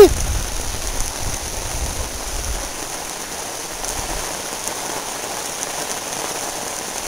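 Steady heavy rain falling on the ground and pooled water, a downpour. A low rumble of wind or handling on the microphone sits under it for the first couple of seconds.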